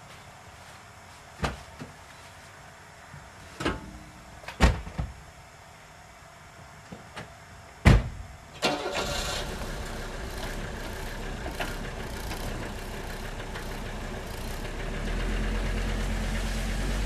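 Several sharp knocks and clunks, then an old Mercedes-Benz diesel car's engine starts about nine seconds in and settles into a steady run. Its low rumble grows louder about fifteen seconds in. The engine runs on waste vegetable oil.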